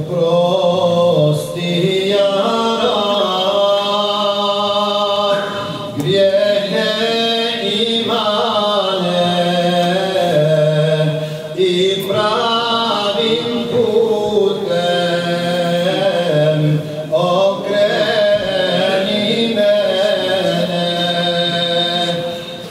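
A man singing an ilahija, a Bosnian devotional hymn, in a chant-like melody of long held, ornamented phrases, pausing briefly for breath about every six seconds.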